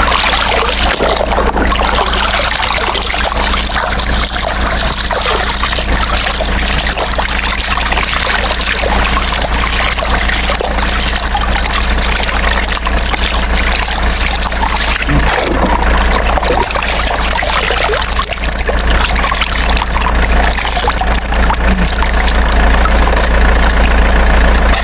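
Water spraying and splashing steadily over a continuous low hum.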